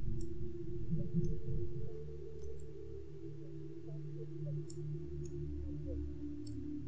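Computer mouse clicking about seven times at irregular intervals, short sharp clicks, over a steady low hum.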